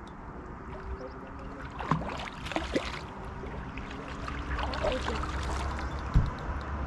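Water splashing as a hooked sturgeon is played in close to the bank.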